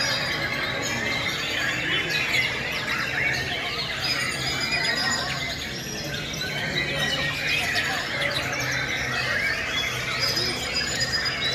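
Many white-rumped shamas singing at once, a dense tangle of overlapping whistles, chirps and trills, over a steady low hum.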